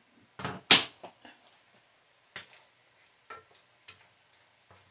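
A stainless steel kettle set down with a loud clunk on a glass-top electric stove, followed by scattered light knocks of a wooden spoon stirring in a metal pan.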